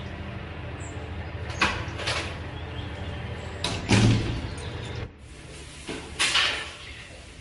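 Doors opening and shutting: a few sharp clicks of a handle and latch, then a heavy thud about four seconds in as a door shuts. Near the end another door shuts with a clack and a swish, against a quieter background.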